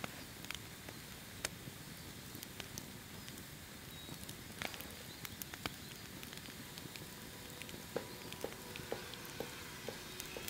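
Wood campfire crackling: irregular sharp pops and snaps of burning wood over a faint steady hiss.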